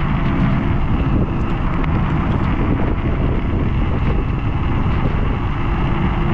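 Wind buffeting the microphone and steady road rumble while riding an MS Energy X10 electric scooter.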